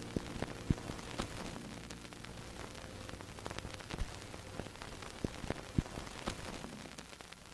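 Old-film crackle: a steady hiss with scattered clicks and pops, slowly fading. The tail of a held music chord dies away in the first half second.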